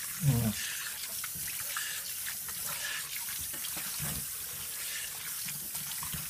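Water running from a tap into a sink while a man splashes it onto his face with his hands, rinsing after a straight-razor shave. A short vocal sound comes just after the start.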